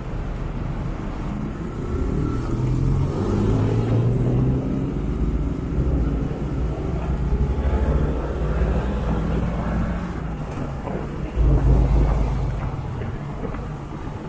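Motorcycle engine running while riding in city traffic, its pitch rising as it speeds up about two to four seconds in, over steady road and traffic noise. A short, loud low rumble comes about eleven and a half seconds in.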